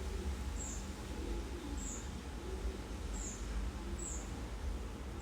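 A short, high-pitched chirp repeating about once a second, over a low steady background hum.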